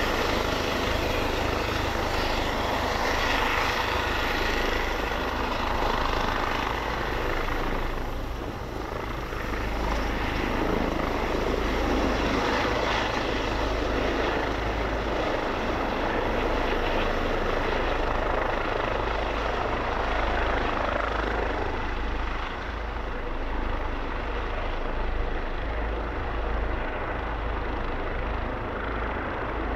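Eurocopter EC135 helicopter hovering low and air-taxiing, its rotors and twin turbine engines running with a steady, continuous noise.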